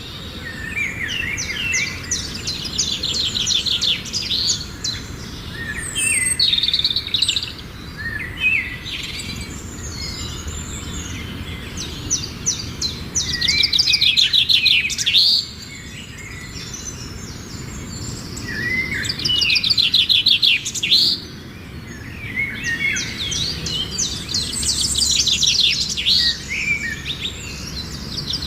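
Songbirds singing: repeated phrases of fast, rapid trills and chirps, each a couple of seconds long, coming every few seconds, over a steady low background rumble.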